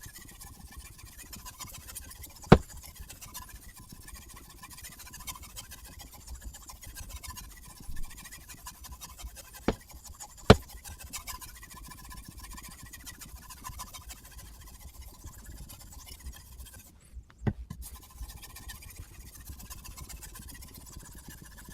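Sharpening stone on a guided-angle knife sharpener rubbing steadily along a knife blade in a continuous scraping hiss, with four sharp clicks.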